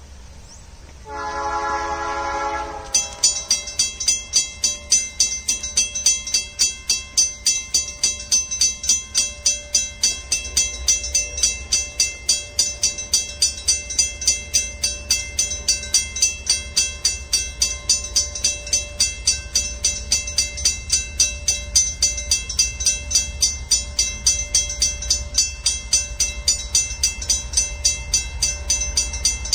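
A distant diesel locomotive horn sounds once, about a second in, for under two seconds. Then a loud ringing starts, repeating evenly about two and a half times a second, over the low rumble of a long, loaded iron-ore train drawing closer.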